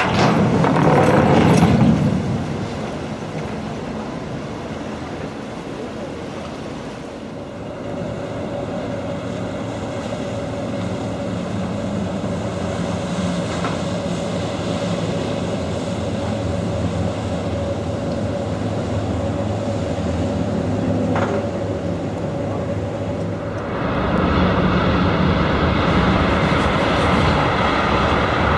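Passenger boat's engine running with churning water and wind noise, heard from on board. It surges louder for the first two seconds as the propeller wash churns around the landing pontoon. It steadies after that and gets louder again about 24 seconds in.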